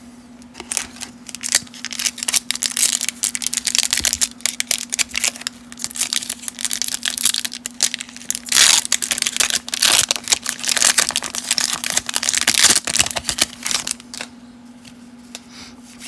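Foil wrapper of a 1991 Leaf Studio baseball card pack crinkling and tearing as it is worked open by hand, a dense run of crackles that dies down about two seconds before the end.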